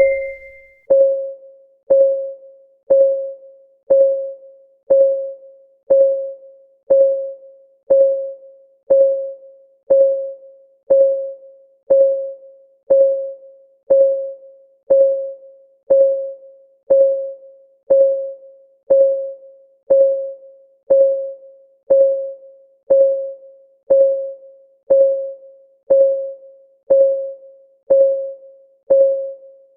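Countdown timer's clock ticking sound effect: one short pitched tock per second, each fading quickly, in a steady unchanging rhythm.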